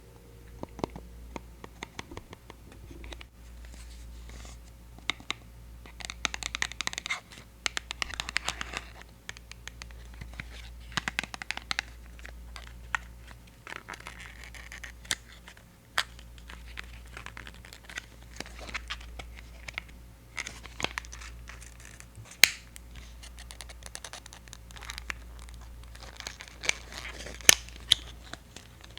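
Close-up ASMR scratching and crinkling on a Hawaiian Tropic mineral sunscreen powder container, coming in patches a second or two long with sharp little clicks and taps between.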